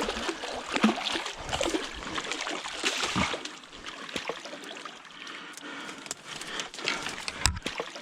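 Water splashing and sloshing at the river's edge as a large hooked zander is landed, with irregular splashes and knocks that are busiest in the first few seconds and thin out after, and one sharp knock near the end.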